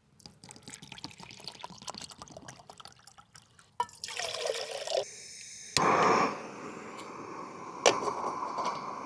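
Water poured into a small camping pot, then a gas canister camping stove lit with a sharp click and a burst and left burning with a steady hiss, with another click a couple of seconds later. The canister is running low, so the flame is starting to blip.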